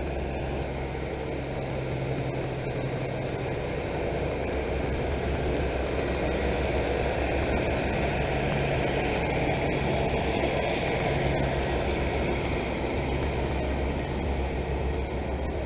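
Class 150 Sprinter diesel multiple unit pulling away, its underfloor diesel engines running under power with a steady low hum and rumble that swells slightly and then eases near the end.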